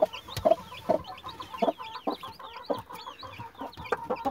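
Newly hatched chicks peeping, a continuous run of high chirps that fall in pitch, over a broody hen's short, low clucks repeating two or three times a second.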